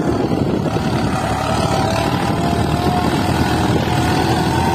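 Massey Ferguson tractor's diesel engine working hard under a heavy trolley load, enough to lift its front wheels, running steadily with a whine that comes in about a second in.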